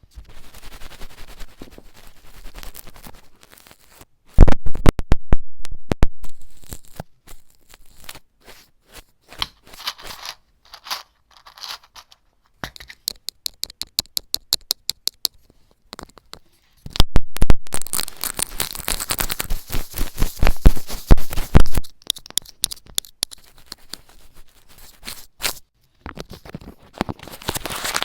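A run of close-miked ASMR trigger sounds: scratching, scraping and tapping noises that change every few seconds, with a fast even run of clicks midway and a loud stretch of dense scratching and crinkling later on.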